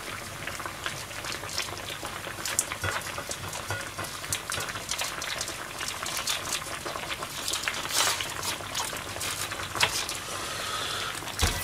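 Water boiling around cabbage leaves in a wide pan: steady bubbling with frequent small pops and crackles. A louder knock comes right at the end.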